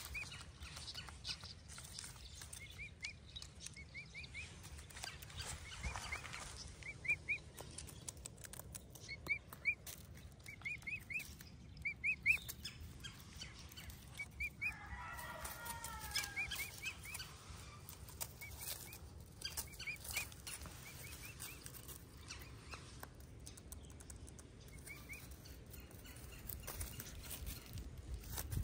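Baby emu chick giving short, high peeps in twos and threes as it forages, with dry leaves rustling and crackling under its feet and beak.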